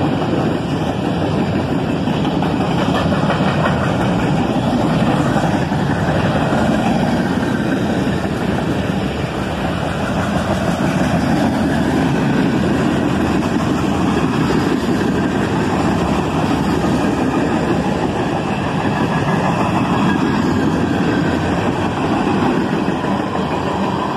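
Freight cars of a passing freight train rolling by close at hand: a loud, steady noise of steel wheels on rail and rattling cars.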